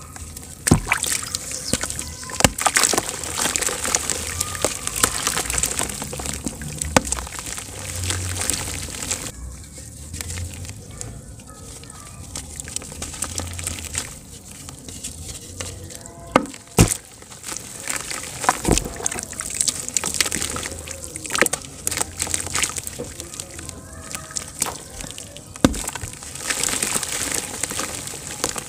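Lumps of dry, powdery dirt crumbling in the hands and dropping into a basin of muddy water, with soaked clumps squeezed and sloshed in the water. It is a dense crackling and splashing with many sharp cracks as the chunks break apart.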